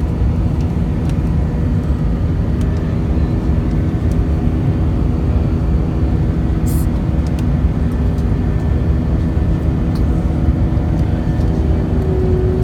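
Cabin noise of an Airbus A320 climbing after takeoff: a steady, loud low rumble from the turbofan engines and airflow, with a steady hum that grows stronger near the end. A brief hiss about seven seconds in.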